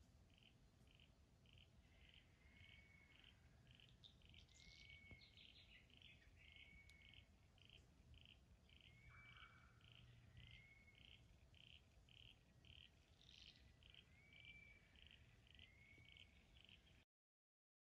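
Faint bush wildlife chorus: a steady, even chirping about two to three times a second, with a short whistled call repeating every couple of seconds and a few higher bird calls over it. The sound cuts off suddenly about a second before the end.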